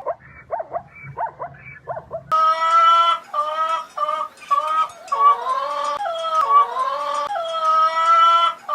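Dog cries: first a run of quick, rising and falling yips and whimpers. Then, after an abrupt change about two seconds in, a louder series of held howling notes, some dipping in pitch, with short breaks between them.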